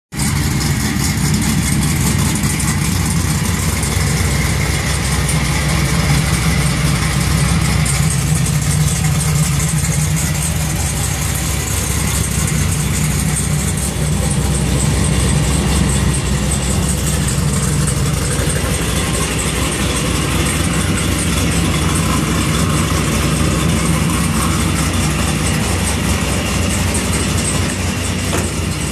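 Cammed 6.0 LS V8 with an LS3 top end in a fourth-generation Camaro SS, idling steadily through a Magnaflow exhaust with the lopey cammed idle the owner calls a "popcorn machine". It is the engine's first run after months of sitting.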